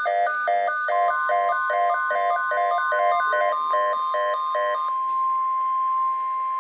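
Weather radio alert: the receiver beeps rapidly, about two and a half times a second, for roughly the first five seconds. About a second in, the steady single-pitch NOAA Weather Radio warning alarm tone (around 1050 Hz) starts and holds on beneath the beeps. It announces a severe weather alert.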